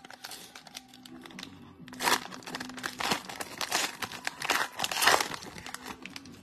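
Mosaic football card pack's foil wrapper crinkling as it is handled and torn open. It is soft at first, then a loud run of crinkling and tearing starts about two seconds in and lasts a few seconds.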